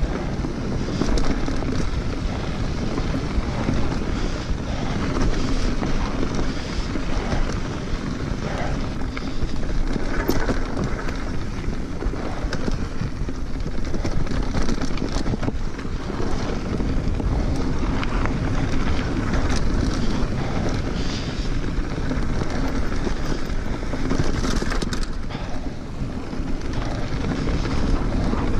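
Wind rushing over an action camera's microphone as a mountain bike rolls fast down a dry dirt singletrack, with tyre noise and frequent small clicks and rattles from the bike over bumps.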